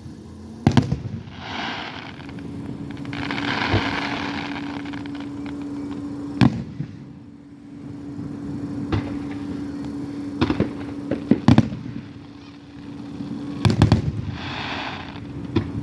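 Aerial fireworks show: sharp bangs every second or two, some in quick pairs, with stretches of hiss between them.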